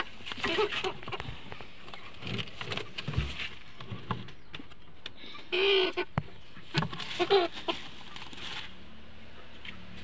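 Hen clucking in short calls several times, loudest about halfway through, as she is handled and set down on a clutch of eggs to brood, with light knocks and scuffs in the wooden nest box.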